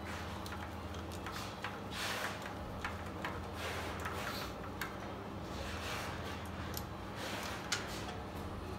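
Hands handling a compression tester's hose and fittings on an Audi 2.7 TDI V6 engine, moving it from one cylinder to the next: scattered clicks, taps and scrapes of metal and plastic over a steady low hum. The engine is not being cranked.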